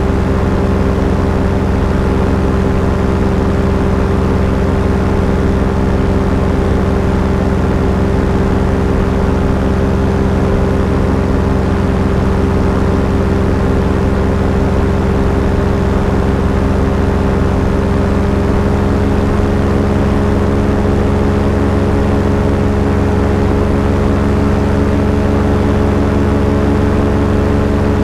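Small aircraft's engine running steadily in cruise flight, a loud, even drone with its note shifting slightly about two-thirds of the way through.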